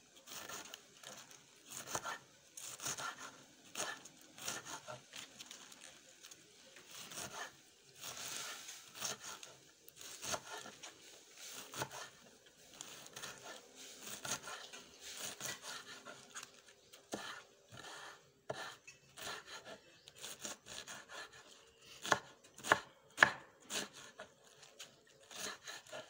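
Knife chopping kale into small pieces: a long, irregular run of quick cuts, with a few louder strikes near the end.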